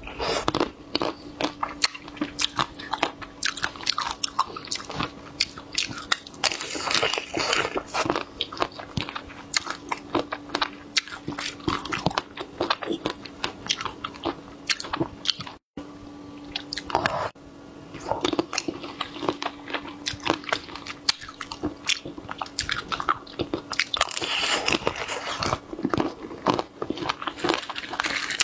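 Biting and chewing chocolate-coated strawberries: a steady run of crisp crunches as the hard chocolate coating breaks, with chewing in between. There is a brief cut to silence about halfway through.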